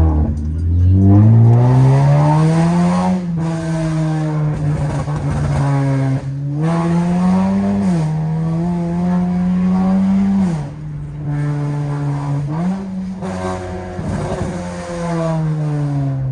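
Straight-through exhaust of a 2015 Acura TLX with the muffler and resonator deleted, the engine revving: the note climbs, holds and drops back three or four times, with sharp drops about three, ten and sixteen seconds in.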